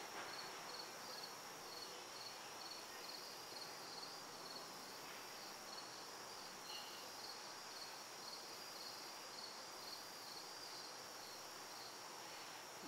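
Crickets chirping in a faint, steady chorus: one high chirp repeats in an even pulse over a continuous higher trill.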